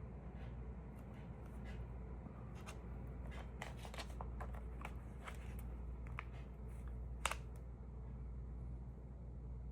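Paper stamps and envelopes being handled: light rustling and small scattered ticks, with one sharper tick about seven seconds in, over a steady low hum.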